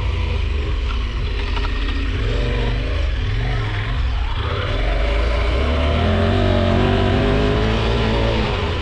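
KTM 1190 Adventure R's V-twin engine running under way, its note rising about halfway through as the bike accelerates.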